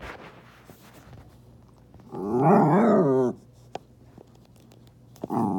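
Jack Russell terrier growling: one loud, pitched growl about two seconds in, lasting just over a second, its pitch wobbling up and down. A second growl starts near the end.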